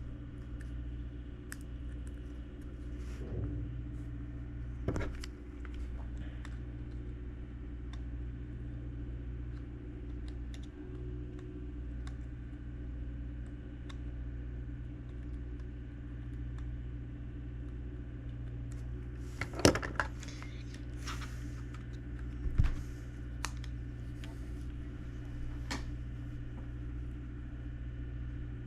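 Small plastic clicks and taps from handling the opened headphones, a few sharper clicks clustered about two-thirds of the way in, over a steady low room hum.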